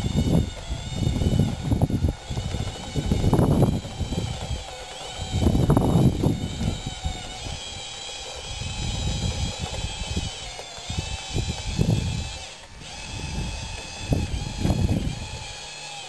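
Wind buffeting the microphone in irregular gusts, over the faint, steady wavering whine of a radio-controlled model bulldozer's electric drive as it pushes dirt.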